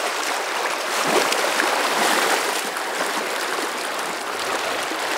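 Fast, shallow river water rushing steadily around a wading angler.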